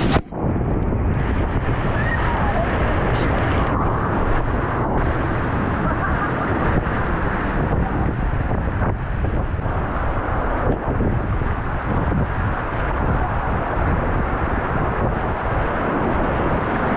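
Whitewater rapids of the South Fork Payette River at high water, about 3000 cfs, rushing steadily around a raft. Right at the start a wave splashes over the raft and camera and the sound dips for a moment.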